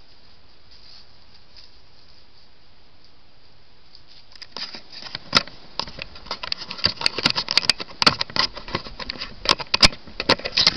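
Handling noise on an Apeman H45 trail camera: a hand gripping and moving the camera right at its microphone gives irregular clicks, knocks and scrapes from about four seconds in. Before that there is only a faint steady hiss.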